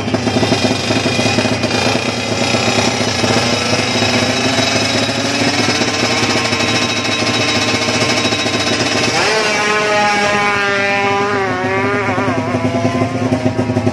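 Drag-racing motorcycle engine running loud at raised revs with a rapid firing rattle, then revved up sharply about nine seconds in and wavering up and down.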